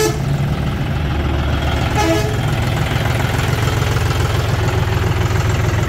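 John Deere 5050D tractor's three-cylinder diesel engine running steadily at low revs. Two brief higher-pitched tones cut in, one at the start and one about two seconds in.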